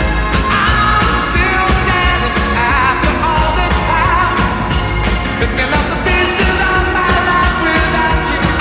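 Rock song with a lead vocal over a steady drum beat, the music played for a Vancouver Canucks win.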